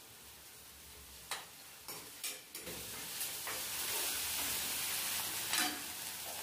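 Curry leaves and chopped vegetables sizzling in hot oil in a steel kadai, a tempering being stirred with a steel spoon. A few sharp clinks of the spoon on the pan come first, then a steady sizzle from about two and a half seconds in.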